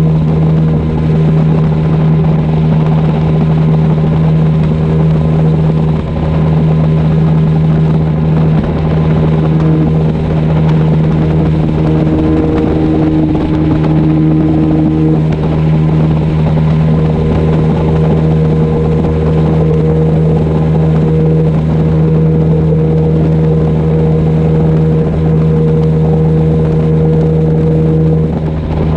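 Outboard motor of a flats skiff running at a steady cruising speed, a constant hum with a rush of wind and water over it.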